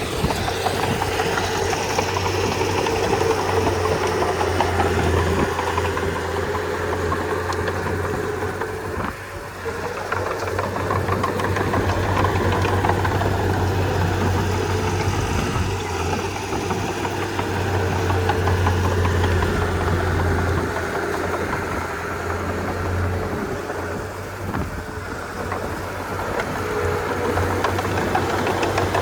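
Komatsu D31P crawler bulldozer's diesel engine running steadily with a deep hum and mechanical clatter, easing off briefly about a third of the way in.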